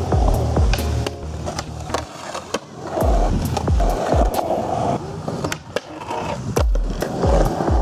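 Skateboard wheels rolling on concrete with sharp clacks of the board and a scraping grind along a concrete ledge, over music with a steady bass beat.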